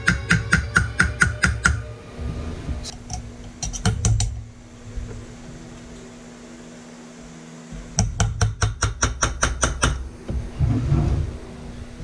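Small hammer tapping a hand graver into a metal buckle plate held in an engraver's ball vise: quick, sharp metallic taps about five or six a second. They come in two runs, one ending about two seconds in and another from about eight to ten seconds in, with a few scattered taps between.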